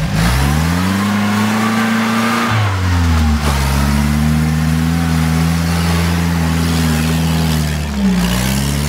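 UAZ Bukhanka van's engine revving hard under load as the van churns through deep mud with its wheels spinning. The revs sag about three seconds in, hold steady, then dip and climb again near the end.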